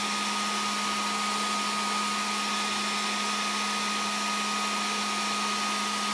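Makita DHG181 18V cordless heat gun running flat out: a steady rush of blown air with a thin, constant high whine.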